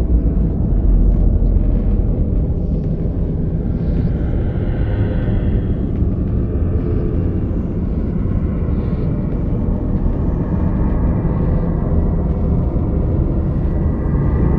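Haunted-house horror ambience: a steady, deep rumbling drone, with faint eerie higher tones drifting in and out.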